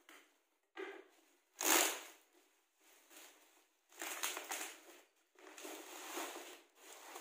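Plastic wrapping on a cardboard box being cut open and pulled off, crinkling and rustling in irregular bursts, with one loud crackle about two seconds in.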